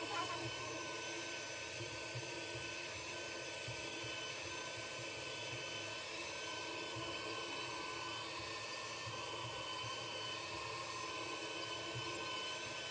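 Hutt DDC55 window-cleaning robot's suction fan running steadily with a high whine while it holds to the glass and wipes.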